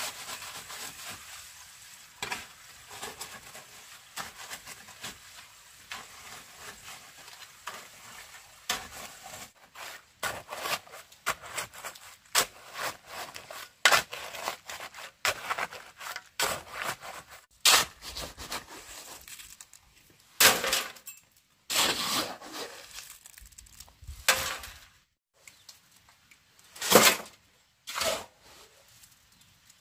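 Steel shovel scraping and chopping through a wet cement-and-gravel mix, many short rough scrapes that grow sharper from about ten seconds in, with a few louder scrapes and thuds in the last ten seconds. For the first few seconds there is a soft, even hiss of water sprinkling from a watering can onto the pile.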